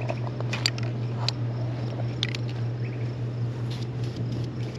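Aerosol spray-paint can being handled and shaken while its target is repainted: a few sharp, irregular clicks of the can's mixing ball, over a steady low hum.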